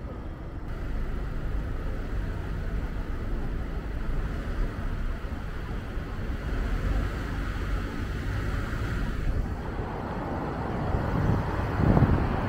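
Vehicle road noise: a low, steady rumble that grows louder and rougher near the end.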